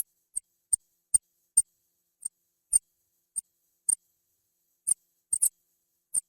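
Rat squeaks: about a dozen very short, high-pitched chirps, irregularly spaced, with silence between them.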